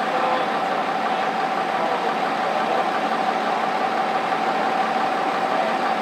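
Vehicle engine idling steadily, with a steady whine held over it.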